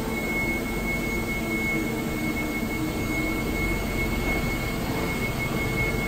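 1998 TMS NC vertical lathe running with its table turning: a steady mechanical drone with a constant high whine and a low hum.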